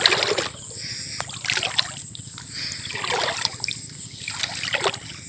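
Water splashing and dripping as a wet current jal fishing net is hauled hand over hand out of the water, in splashy pulls about every second and a half.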